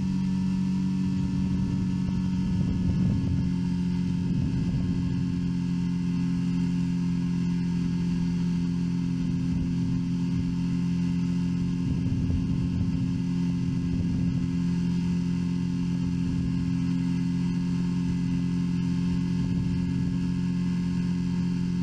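Steady drone of an open-cockpit ultralight aircraft's engine and propeller in flight, holding an even pitch, with wind buffeting the microphone in irregular low gusts.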